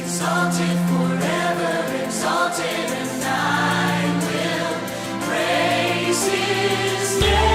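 A choir singing with sustained low accompaniment. Just before the end, a different piece of music cuts in with a strong deep bass.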